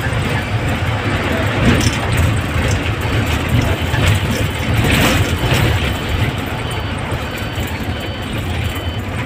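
Hino bus driving at speed, heard from inside the cabin: a steady low engine rumble mixed with road and wind noise.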